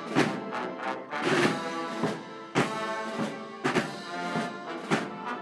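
Wind band (banda de música) playing a Semana Santa processional march: a sustained brass-led melody over sharp percussion strikes.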